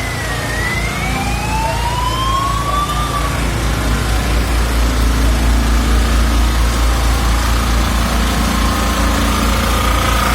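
An emergency vehicle's siren wails, dipping and then rising once through the first three seconds, over a heavy vehicle engine running steadily that grows louder from about four seconds in.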